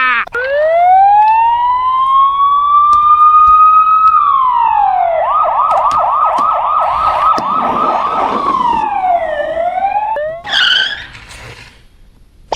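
Electronic ambulance-style siren: a slow rising wail, then a fast yelp warbling about four times a second, then a fall and rise in pitch before it stops near the end, followed by a brief squeak.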